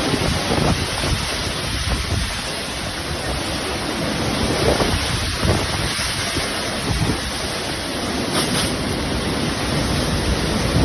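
Loud, steady rushing of water, with wind buffeting the microphone.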